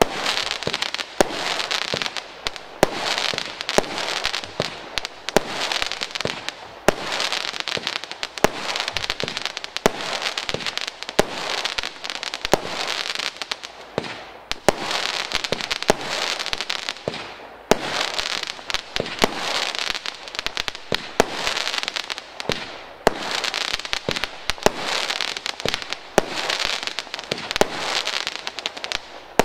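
Black Cat 'Explosions On Jupiter' firework cake firing a continuous barrage: sharp reports about one to two a second over dense crackling. There are brief lulls about halfway through.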